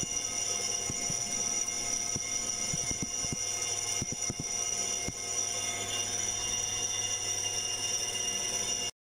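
A machine tool running with a steady, high-pitched whine over a low hum, with a few soft knocks in the first half; it cuts off abruptly near the end.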